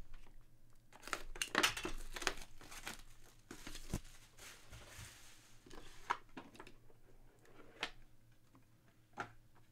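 Cardboard box being opened by hand: rustling, scraping and crinkling of the sealed Hit Parade graded-card box and its lid, with a dull knock about four seconds in and a few light taps after.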